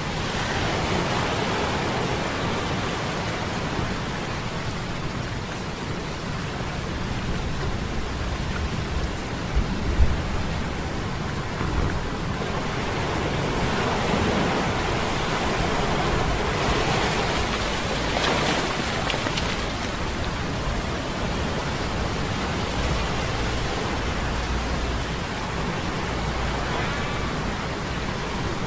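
Sea storm sound effect, a steady rushing noise of rain and surf that swells a couple of times, layered over a low hum of metal gears. A brief low thump comes about ten seconds in.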